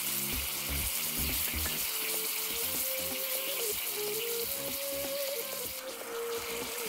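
Ground beef sizzling steadily in a hot frying pan with onions, over light background music.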